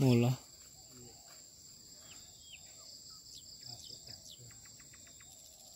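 Insects shrilling steadily at two high pitches, with a few short falling chirps over it and a quick run of ticks about four and a half seconds in.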